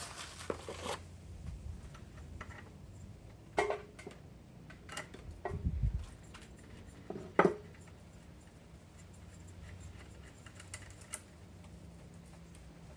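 Scattered clicks, clinks and light knocks of small metal parts and tools being handled, with sharper knocks about three and a half seconds in and again at about seven and a half seconds.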